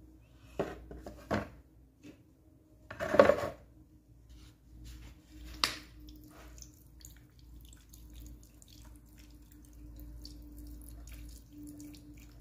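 Plastic drill housing halves knocking and clattering into a plastic basin, loudest about three seconds in. After that, liquid poured from a plastic bottle trickles and splashes over the housings, with a steady hum underneath.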